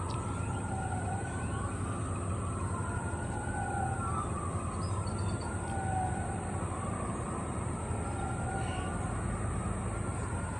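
Emergency vehicle siren wailing, its pitch rising and falling slowly about every two and a half seconds, over a steady low rumble.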